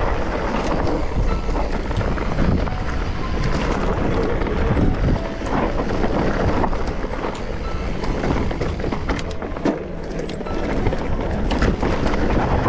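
Mountain bike riding down a rough, dry trail: a steady rush of tyre noise and wind buffeting the microphone, with the bike rattling and knocking over stones.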